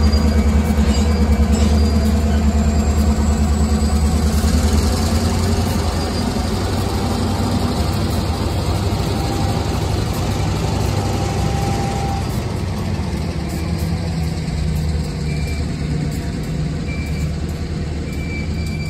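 Union Pacific diesel locomotive engines running with a deep, steady rumble as the locomotives move slowly past and away, the sound slowly fading.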